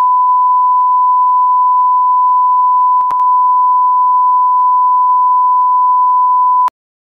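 Colour-bars test tone: one steady, loud, high-pitched beep at a single pitch, with a brief click and slight dip about three seconds in. It cuts off suddenly near the end.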